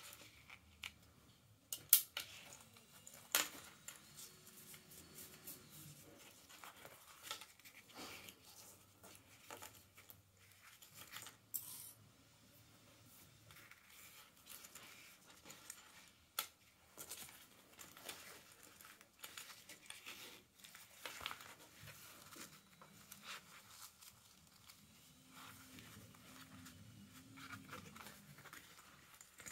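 Hands handling and rustling fabric and a metal zipper on a sewing table, with scattered small sharp clicks and snips, the loudest a couple of seconds in.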